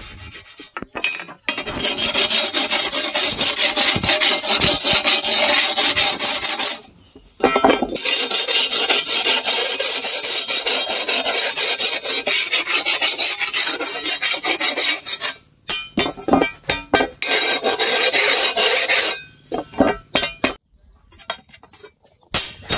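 Rust being scraped off a steel sword blade with the edge of a curved sickle-like blade: rapid, harsh metal-on-metal scraping in long runs with short pauses, turning into separate strokes in the last few seconds.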